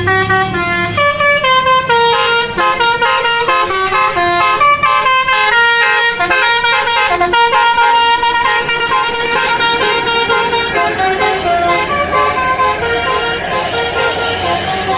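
Tour bus's basuri telolet musical horn playing a fast melody of short notes that step quickly from pitch to pitch, with several tones sometimes sounding together.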